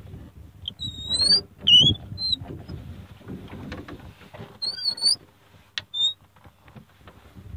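Bird chirps: short, clear whistled notes rising in pitch, in two clusters about a second in and again about five seconds in, over a faint low steady hum with scattered small knocks and rattles.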